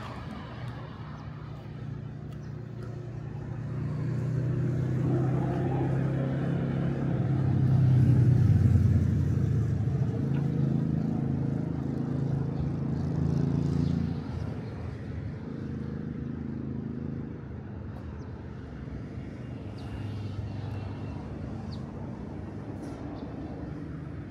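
A passing vehicle: a low rumble that builds over several seconds, is loudest about eight seconds in, and drops away after about fourteen seconds, leaving a fainter steady hum.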